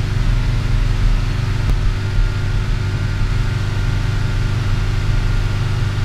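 Audi 5000 CS Turbo Quattro's turbocharged inline-five engine running steadily at a raised speed of about 2500 rpm, heard from inside the cabin. The engine is being held there for an alternator charging test under load.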